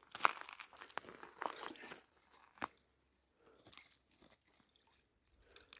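Close crunching and clicking for about two seconds, then one sharp click and a few faint scattered ticks.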